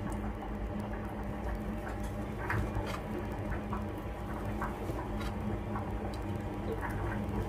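Kitchen knife cutting canned corned beef into dice on a cutting board: light, irregular taps and clicks.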